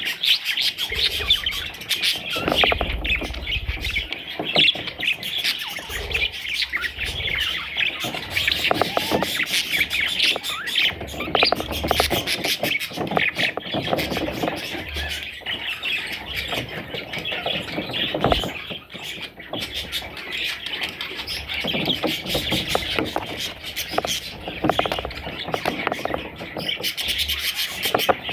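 Baby budgerigars chirping and squawking continuously, a dense stream of short, high calls.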